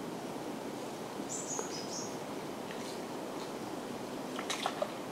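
Steady outdoor background hiss, with a short high bird chirp about a second and a half in and a quick run of three or four sharp clicks near the end.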